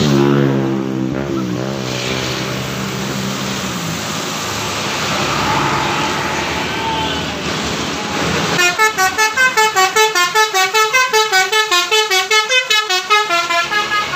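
Traffic passing a roadside, a heavy vehicle's engine note falling away in the first few seconds. About halfway through, a bus's 'telolet' multi-tone musical horn plays a fast run of stepped notes, about five a second, for some five seconds.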